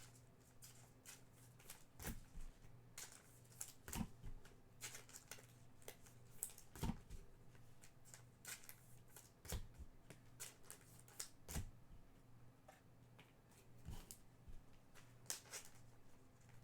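Trading cards being handled and flicked through: soft, irregular flicks and slides of card stock, a couple of times a second, over a faint steady low hum.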